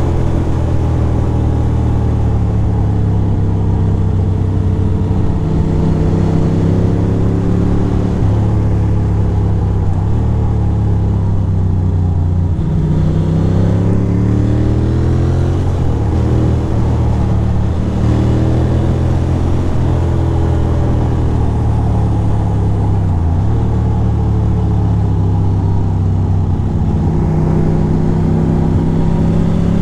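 2006 Ducati Monster 620's air-cooled L-twin engine running steadily on the move. Its pitch sinks and climbs back with the throttle around the middle, with another short dip a little after twenty seconds.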